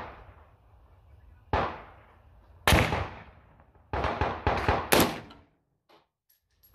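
.308 AR-10 rifle being fired: three shots about a second apart, then a quick string of about five near the end, each a sharp crack with a short echo.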